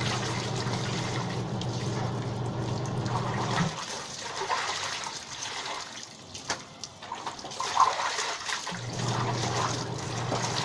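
Clothes being hand-washed in a basin of soapy water: sloshing, squeezing and splashing, with water trickling back into the tub. A steady low hum runs underneath, stops about four seconds in and comes back near the end.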